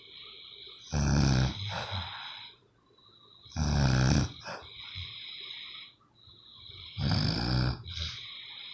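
A sleeping person snoring: three loud snores about three seconds apart, each followed by a softer, thin high whistling breath.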